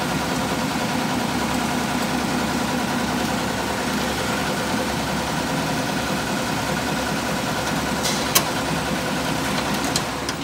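Steady mechanical hum of running machinery, with several constant tones over it, a sharp click about eight seconds in, and the hum cutting off abruptly just before the end.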